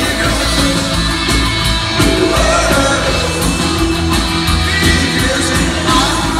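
Punk rock band playing live through a PA: loud, steady drums, distorted guitar, bass and keyboards under a singer's vocals, heard from within the crowd.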